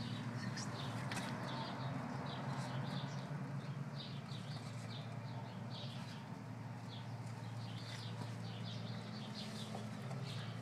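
Birds chirping in quick, repeated short calls over a steady low hum.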